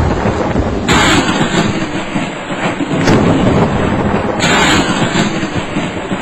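Storm sound effect: a constant low rumble of thunder under the hiss of falling hail, with two sudden louder crashes, one about a second in and one a little past four seconds.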